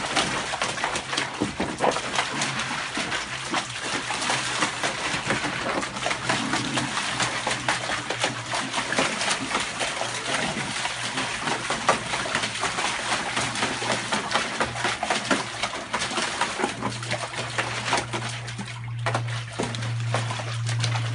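A Vizsla puppy splashing and stamping about in a hard plastic paddling pool, the water sloshing and splattering continuously in irregular bursts. A steady low hum runs underneath, louder over the last few seconds.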